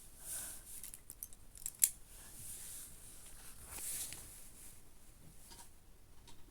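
Faint handling noise: a quick run of small clicks about a second in, one sharp click just before two seconds, and soft rustling.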